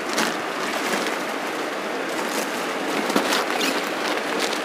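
Steady rushing background noise with a few sharp crackles of plastic garment covers being handled.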